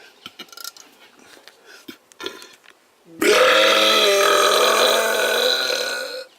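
A person's long, loud burp lasting about three seconds, starting about three seconds in, after a few faint clicks.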